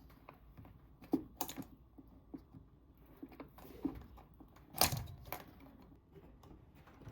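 Plastic wiring connectors on an LG washing machine's electronics being pushed, wiggled and unclipped by hand: a string of irregular small clicks and taps, the loudest snap a little under five seconds in.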